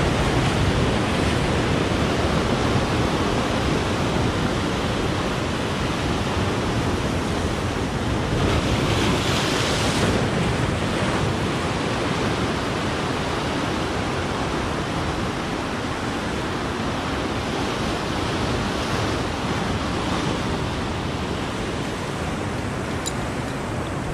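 Surf breaking and washing over shoreline rocks, a steady rushing with one louder crash about nine seconds in, with some wind on the microphone.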